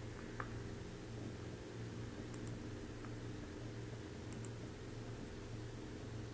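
Steady low electrical hum with a few faint, short computer-mouse clicks, some of them in quick pairs.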